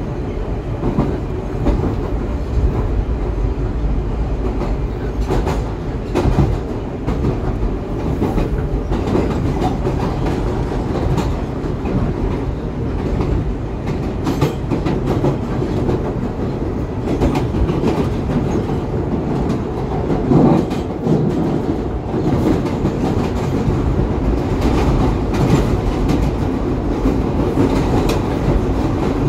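R142A subway car running on the express track, heard from inside the car: a steady rumble of wheels on rail, with repeated clicks as the wheels pass over rail joints.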